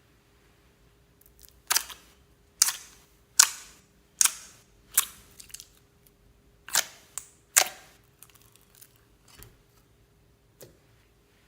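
Glossy slime being pressed and worked by hand, giving a series of sharp pops and clicks from trapped air. There are about seven loud pops a little under a second apart, then fainter ones, over a faint steady hum.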